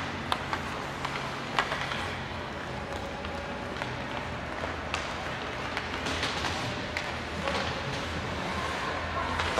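Ice hockey game in a rink: a steady low hum and haze of noise, broken by scattered sharp clacks of sticks and puck, with faint crowd voices.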